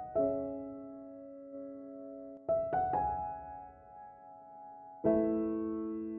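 Soft background piano music: slow chords struck a few at a time and left to ring and fade.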